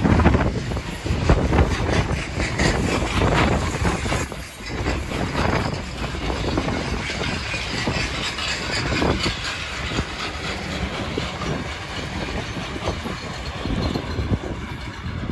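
Freight train of box wagons rolling past close by, wheels clattering in a rapid run of knocks. The noise eases off gradually as the last wagons pass.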